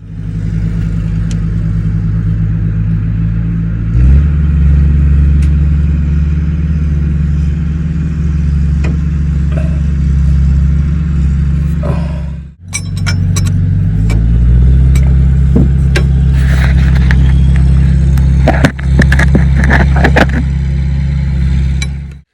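Road vehicle's engine running under way, a steady low drone that gets louder about 4 seconds in and again after a brief break around 12 seconds. Light clinks and rattles sound over it in the last few seconds.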